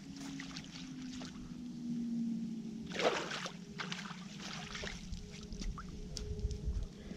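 A hooked fish splashing at the surface and being scooped into a landing net, with the loudest splash about three seconds in; water sloshes and trickles as the net is lifted out.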